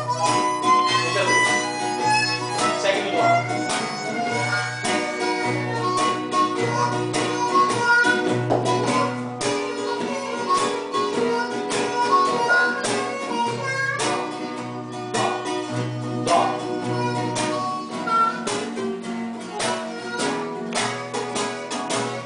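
Live instrumental blues jam: guitars with a harmonica playing long held notes over a repeating low line.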